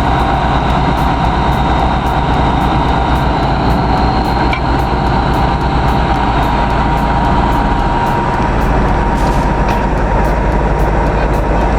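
A heavy vehicle's engine running steadily, with a continuous whine over a low rumble.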